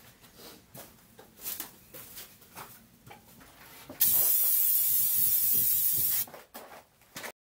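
A steady, loud hiss of air or spray forced through a Triumph Spitfire's fuel line to blow the old fuel and gunk out of it, starting suddenly about four seconds in and cutting off about two seconds later. Light handling knocks and taps come before and after it.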